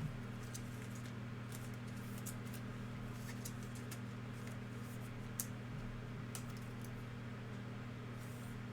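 Trading cards being handled and flipped through: scattered faint ticks and rustles, one a little sharper about five and a half seconds in, over a steady low hum.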